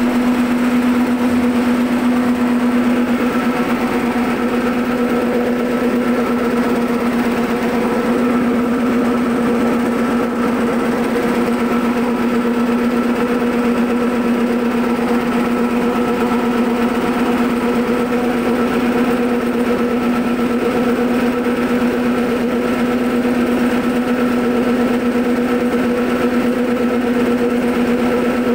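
Stainless-steel soybean cracker and hull separator running steadily, its motor giving a constant, unchanging hum.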